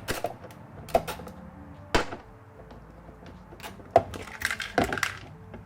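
Sharp clicks and light knocks of a screwdriver and hard plastic interior trim as the screws on a roof-mounted interior lamp cover are undone, a handful of separate clicks about a second apart with a short rustle near the end.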